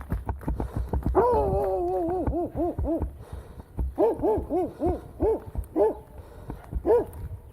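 A dog barking: one longer drawn-out bark about a second in, then a quick run of short barks and a few more after a pause. Running footsteps thud in the first second.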